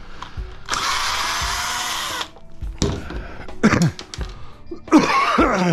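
Cordless drill driving out a screw in one burst of about a second and a half, followed by knocks and scraping of the aluminium shower-door frame, some with a falling ring.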